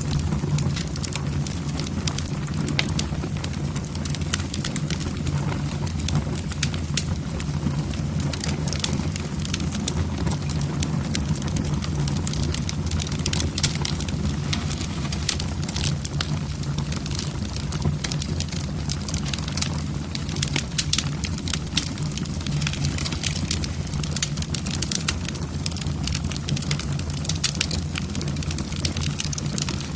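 Wood fire in a fireplace, logs crackling with many irregular sharp pops over a steady low rumble of the flames.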